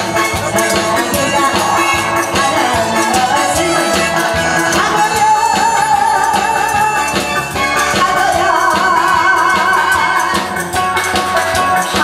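A woman singing into a microphone over amplified band music with drums, her voice wavering with vibrato and most prominent in the second half.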